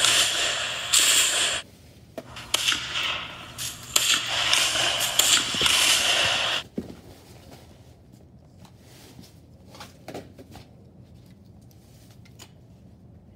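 Bursts of rapid automatic gunfire, dense and hissing, in two long volleys that stop abruptly about six and a half seconds in; then scattered faint clicks and rustles.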